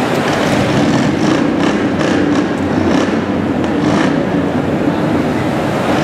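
Steady loud rumble of demolition derby car engines running in an arena, with a few faint knocks scattered through the first few seconds.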